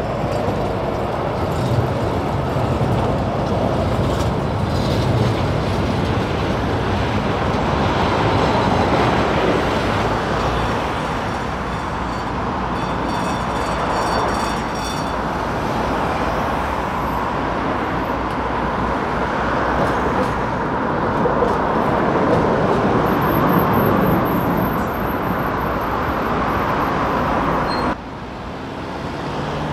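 Busy city street traffic: cars and a coach bus passing close, mixed with a ČKD Tatra K2 articulated tram running along the tracks. Near the end the sound drops abruptly to quieter traffic.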